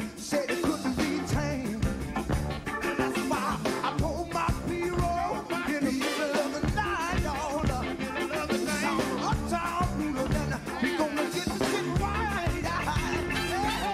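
A live funk band playing, with a man singing lead over a steady drum-and-bass groove.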